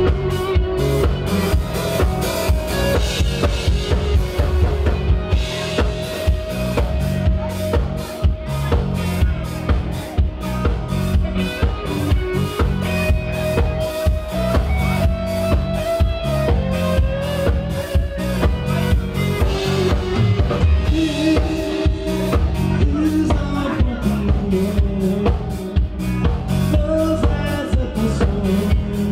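Live rock band playing: a drum kit keeping a steady beat under electric bass and held, bending electric guitar notes.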